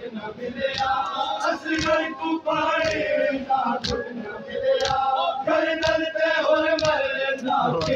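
Crowd of men chanting a Muharram noha (lament) together, with sharp slaps of matam, hands striking chests, at an uneven beat of roughly one or two a second.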